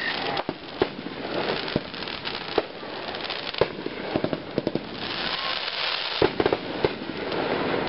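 Aerial fireworks bursting overhead: a run of sharp bangs, some in quick clusters of several reports, over a steady crackling hiss that is densest a little past halfway.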